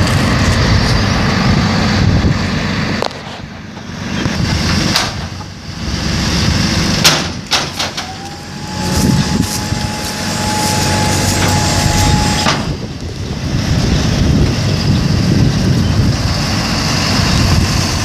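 Box delivery truck's engine idling, with wind buffeting the microphone. About eight seconds in a steady whine rises in, holds for about four seconds and cuts off suddenly.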